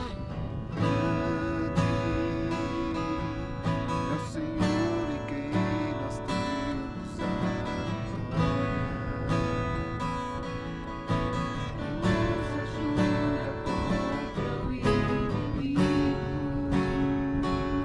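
Acoustic guitar strummed and picked in a steady chord accompaniment to a worship song, with no words sung.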